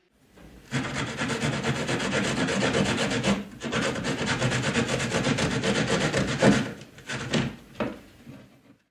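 Rapid, rough rasping scrape, like wood being rubbed or rasped, with a short break about three and a half seconds in and two short strokes near the end.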